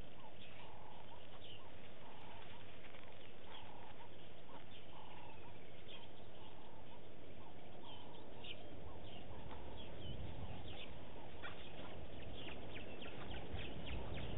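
Wild birds calling: many short chirps and whistles, with a lower call repeated over and over, over a steady hiss. A low rumble builds near the end.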